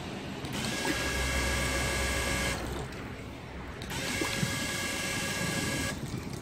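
Digital-control liquid filling machine's pump running twice for about two seconds each, a steady whine that stops for about a second between the two fills, as it dispenses water into a plastic bucket.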